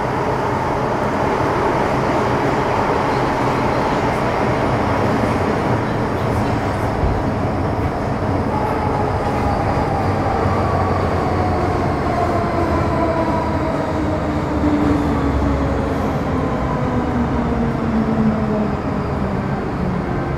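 Running sound inside an MTR Metro-Cammell M-Train car (C239, GEC GTO chopper) in the Island Line tunnel: a steady rumble of wheels and running gear. From about halfway through, the traction motor whines fall steadily in pitch as the train slows.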